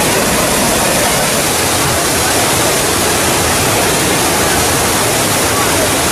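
Waterfall at close range: a loud, steady rush of falling water that does not change.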